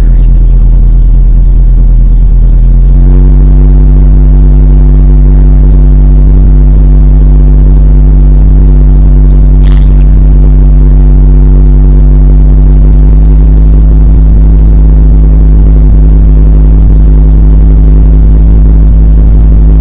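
A de Havilland Canada DHC-2 Beaver floatplane's engine and propeller, loud inside the cabin, running at low taxiing power on the water. The engine note steps up about three seconds in and then holds steady. A brief click comes about halfway through.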